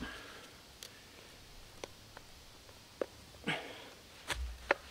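Clamshell post hole digger working a hole in the ground: a handful of sharp clicks from the steel blades, scrapes, and a dull thud near the end as the digger is driven in and pulled out.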